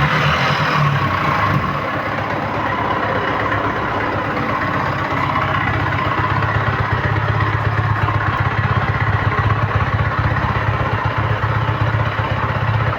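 Yamaha MT-15's single-cylinder engine dropping back from a rev and settling into a steady idle about a second and a half in, with a rapid, even pulsing. This is the loud engine noise the owner flags on a bike with little mileage.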